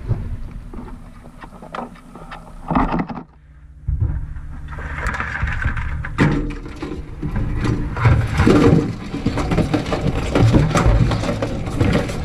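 Live blue claw crabs clattering in a stainless steel sink: a dense run of knocks, clicks and scrapes of shells and claws on the metal, with a low rumble of handling underneath. The clatter grows busier and louder from about four seconds in.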